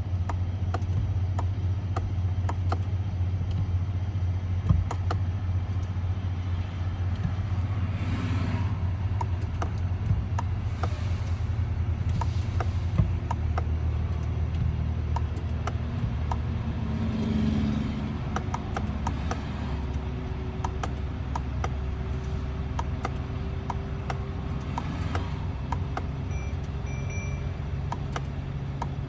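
Vehicle engine running steadily with a low rumble, with scattered faint ticks and a few brief swells of passing noise.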